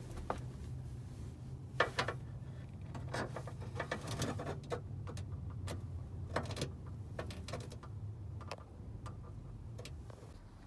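Plastic wiring-harness connectors and wires being handled and pushed into the Webasto heater's sockets: a scattered series of small clicks and rattles over a steady low hum.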